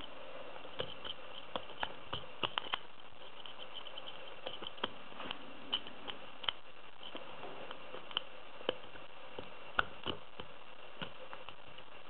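Lock pick and tension wrench working the pins of an AZBE pin-tumbler lock cylinder: small, irregular metallic clicks as the pick lifts and sets the pins, the loudest near the end.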